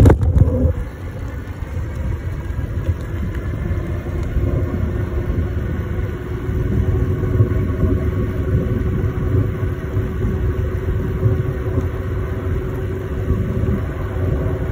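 Wind and road rumble buffeting the microphone of a phone mounted on a moving e-bike, with a sharp knock at the very start. From about four seconds in, a faint steady whine from the e-bike's motor runs under the rumble.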